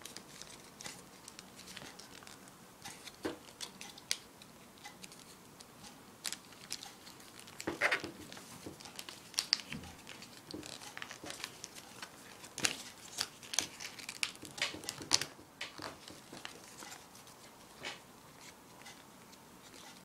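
A sheet of paper rustling and crinkling as it is folded and creased into an origami crane, in irregular crackles, loudest about eight seconds in and again around fifteen seconds.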